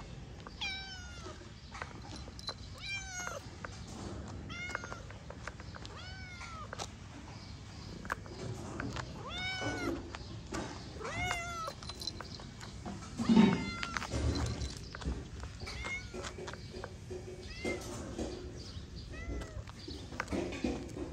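Young black cat meowing again and again, short meows that rise and fall in pitch, one every second or two, with a louder sound a little past the middle.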